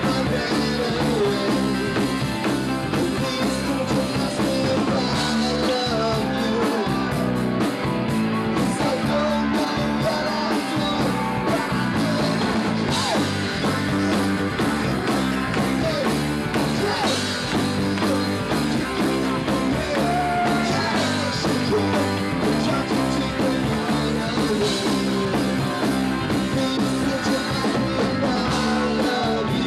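Live rock band playing: the lead singer sings into a microphone over electric guitar and drums.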